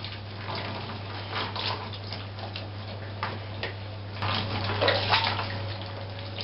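Water splashing and dripping in a bathtub as a small dog's wet coat is worked by hand, in short irregular bursts, busier and louder from about four seconds in.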